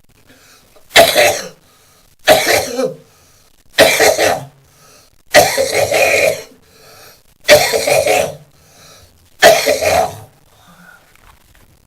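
A man coughing in six bouts, about every one and a half to two seconds, some bouts with several coughs in a row: a productive, chesty cough bringing up phlegm.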